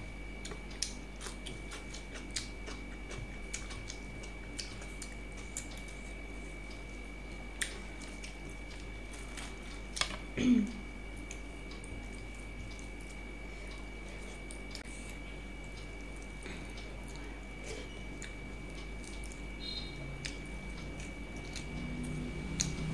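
Eating by hand from a steel plate: scattered faint clicks of fingers and rice against the metal plate, with quiet chewing. A brief louder sound with a short pitch slide comes a little before halfway.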